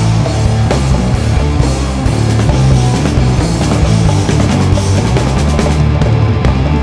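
A live rock band playing loud, heavy instrumental music: drum kit, electric guitar, violin and hand drums, over a strong steady bass.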